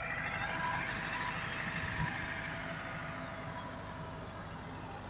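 Massey Ferguson 385 tractor's diesel engine running steadily as it pulls a laser land-leveller blade through loose soil, a little louder in the first couple of seconds and easing slightly after.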